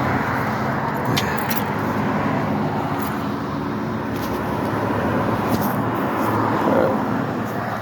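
A vehicle engine running steadily amid road traffic noise, with a few light clicks.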